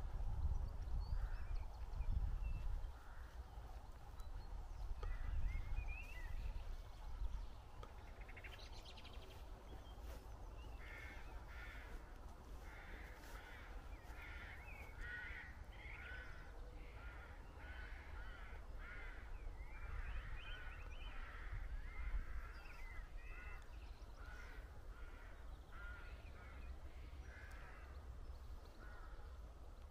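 Birds calling in a quick run of short, repeated calls from about ten seconds in, over a low rumble that is strongest in the first few seconds.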